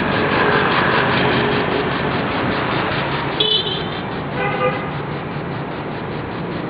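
Street traffic of passing motorbikes and scooters, a steady engine and road noise. Two short horn beeps sound about halfway through.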